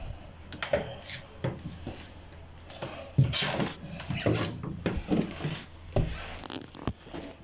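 Irregular light knocks, rubs and rustles of handling and movement in a small room, with a slightly stronger knock and rustle about three seconds in.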